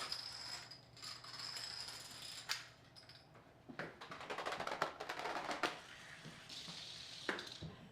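Homemade Rube Goldberg machine running: small parts clicking and knocking, with a fast clattering run of clicks like toppling dominoes a little before the middle, and a faint steady high whine in the first few seconds.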